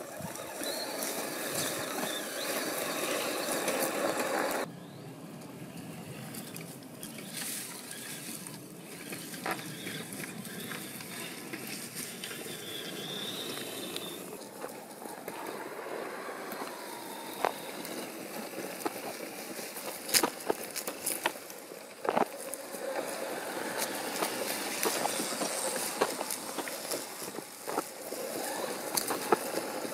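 1/8-scale RC Land Rover Defender crawler driving over a forest trail: its electric motor and drivetrain running as the tyres crunch over pine needles, twigs and stones, with sharp clicks and cracks here and there. The sound drops abruptly about four and a half seconds in.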